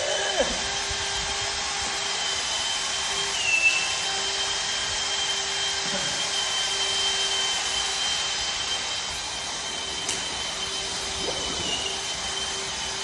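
Electric drain-cleaning snake running steadily, its motor giving a high whine over a lower hum, with the whine dipping briefly in pitch twice.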